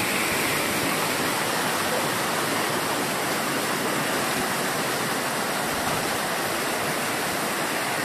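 Shallow stream cascading over layered rock ledges in small falls: a steady rushing of water.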